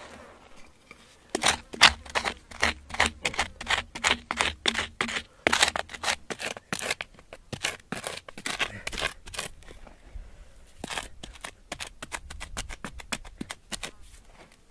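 A wooden digging stick jabbing and scraping into hard, gravelly soil in quick repeated strikes, about three a second, thinning out to scattered strikes in the second half.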